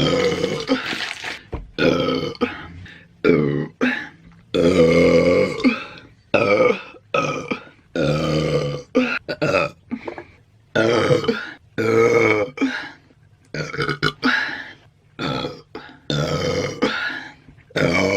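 A woman belching over and over: a rapid string of loud, pitched burps, most of them short, with a longer drawn-out one about five seconds in.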